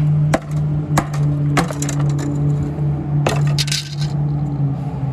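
The plastic clips and cover of a crash-damaged car's rear bumper snapping and cracking as it is pried loose with a hand tool: a few sharp cracks and clicks spread over several seconds, over a steady low hum.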